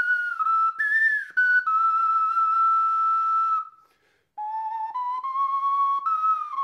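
Antique 10-hole Charles Mathieu ocarina of nickel-plated pewter or pot metal, played as a slow ballad melody with an airy tone. A long held note dips at its end and breaks off for a brief breath, and the tune then resumes on lower notes.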